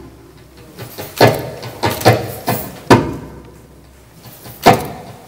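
Djembe hand drum struck in a sparse improvised pattern: a quick run of about five strikes in the middle, each ringing out briefly, then a pause and one last strike near the end.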